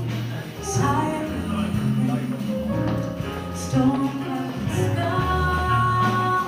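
Live jazz band playing: a horn section with saxophones and trombone over piano, bass and drums, with cymbal strokes and a long held note near the end.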